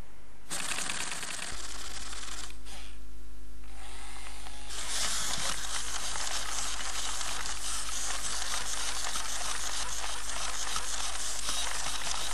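i-Cybie robot dog's leg motors and gears whirring and rattling as it walks: a dense run of fine mechanical clicks that grows fuller about five seconds in.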